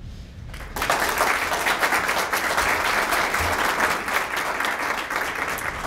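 Audience applauding, starting suddenly about three-quarters of a second in and going on steadily, easing off slightly near the end.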